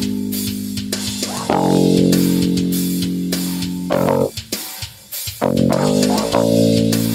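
JCraft Classic R2 active bass, a StingRay-style bass with an onboard preamp, played fingerstyle straight into a sound card. It plays long held notes, drops out briefly about four and a half seconds in, then comes back with a run of shorter notes.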